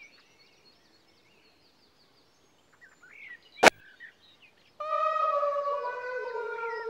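Faint birds chirping, with one sharp click a little past the middle. Near the end a held musical note comes in, its pitch sagging slowly.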